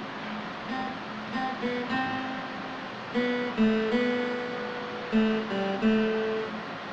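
Acoustic guitar picked one note at a time, playing a slow melody, some notes held and left to ring.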